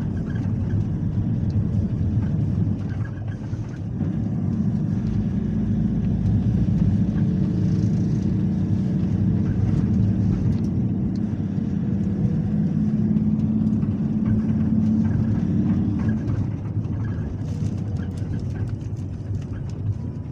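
Engine and road noise of a moving vehicle heard inside its cabin: a continuous low drone, with an engine hum that holds a steady pitch from about four seconds in until about sixteen seconds in.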